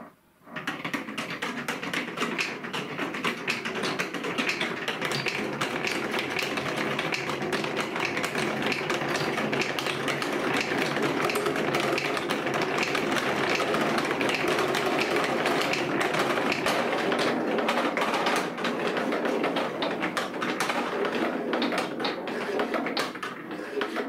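Many small balls rolling and clattering down a marble run's wavy plastic and wooden tracks: a dense stream of quick clicks and rattles that starts about half a second in and stops suddenly near the end.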